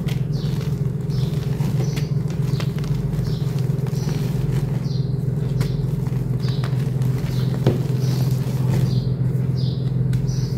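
Hands squeezing and crumbling a block of homemade reformed gym chalk, giving soft, dry, powdery crunches over and over, about once or twice a second. A steady low hum runs underneath.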